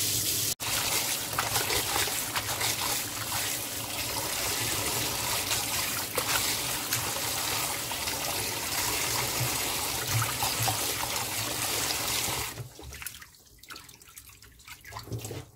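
Tap water running into a stainless steel bowl of blanched young perilla leaves as they are rinsed by hand. The flow stops about twelve seconds in, leaving quieter sounds of hands moving the leaves in the water.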